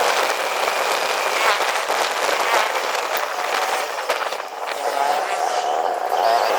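Motor vehicle noise with scattered clicks. A steady tone comes in about five seconds in.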